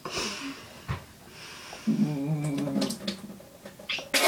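A man's closed-mouth groan, held steady for about a second in the middle, between breathy exhales and a sharp burst of breath near the end. It is a pained reaction to the burning of a swallowed spoonful of powder in the cinnamon challenge.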